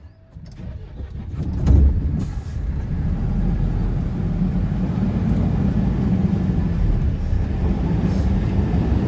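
Heavy truck's diesel engine heard from inside the cab, building as the truck moves off and then running steadily under way. There is a loud thump about two seconds in.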